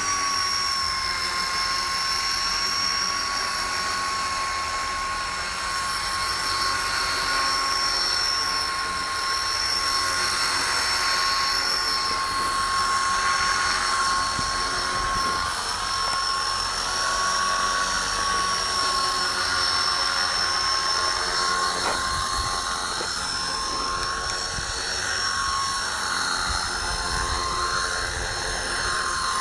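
Copter X 250 electric RC helicopter hovering low: a steady high whine from its electric motor and drive gears over the whir of the spinning rotor blades, the pitch shifting slightly as it manoeuvres.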